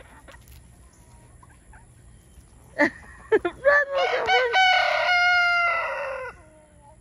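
A rooster crowing once, loud: a few short sharp notes about three seconds in, then one long drawn-out call that drops in pitch and stops a little before the end.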